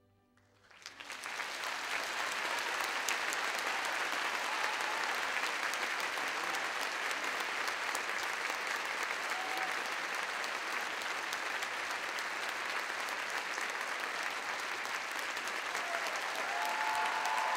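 Large theatre audience breaking into applause about a second in, quickly building to steady, dense clapping, with a few faint calls near the end.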